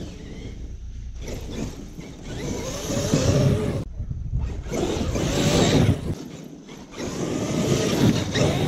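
Traxxas X-Maxx electric RC monster truck driving through cut grass in three throttle bursts, its motor whining and wavering in pitch while the big tyres thrash through the grass, loudest as it comes close near the end.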